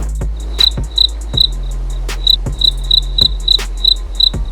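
Cricket chirping in short, evenly pitched pulses, about three a second, with a pause of about a second in the first half, over a steady low hum.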